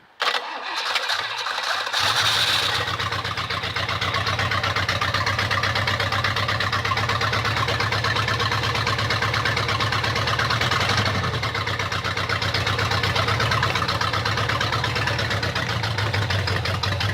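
Inboard boat engine cranked by its starter for about two seconds, then catching and running steadily at idle.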